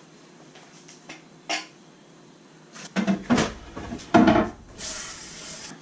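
Kitchen handling sounds: dishes and utensils knocking and clattering on a counter, loudest with a few heavy bumps about three to four and a half seconds in. A short steady rushing noise follows near the end.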